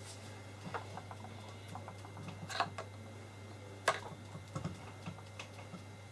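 Scattered light clicks and taps of gloved hands handling small tools and materials on a wooden worktable, with two sharper clicks about two and a half and four seconds in, over a steady low hum.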